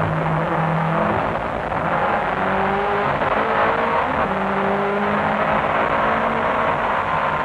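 The Nissan R90CK's 3.5-litre twin-turbo V8 running hard at racing speed, heard from inside the cockpit. The engine note holds high, with brief breaks where its pitch shifts. The wastegates are stuck shut, giving full boost.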